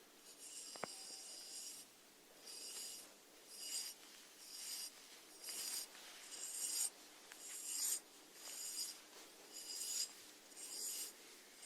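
Snail feeding: its radula rasps at food in short, crisp scrapes, about one a second. A single small click about a second in.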